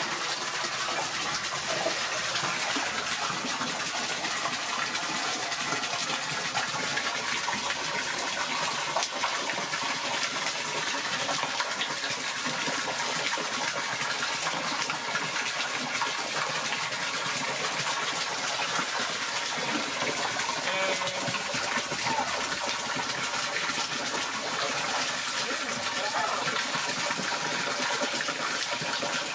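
A steady stream of water gushing into a large stainless steel basin already full of water, splashing and churning without a break.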